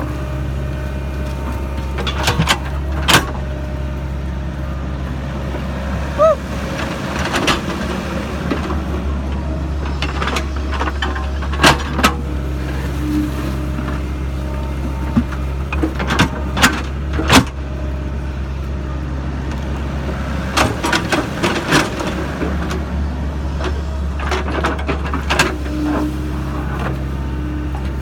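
Sany SY55C mini excavator at work: its diesel engine runs at a steady drone, with sharp metallic knocks and clanks every few seconds.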